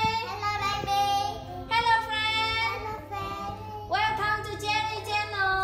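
Young girls singing in high voices, in phrases of long held notes with a short pause in the middle.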